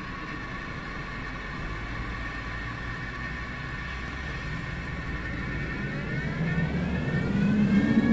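Flood warning siren being tested: a steady set of tones with a low hum beneath, then from about six seconds in the pitch starts to rise and it gets louder as the siren winds up.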